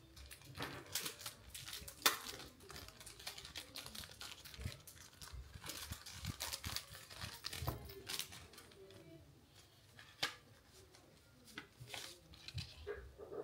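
Packaging wrap being handled by hand, crinkling and rustling in irregular crackles, with a sharper crack about two seconds in.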